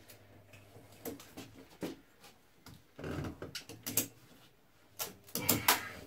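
Glued wooden plates strapped over car tyres crackling and creaking as they are forced into a bend, in scattered clicks with two louder bouts about three and five seconds in.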